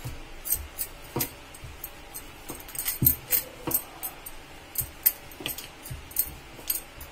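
Wooden rolling pin rolling out a small round of stiff mathri dough on a granite counter: irregular sharp clicks and knocks, two or three a second, with glass bangles on the wrist clinking.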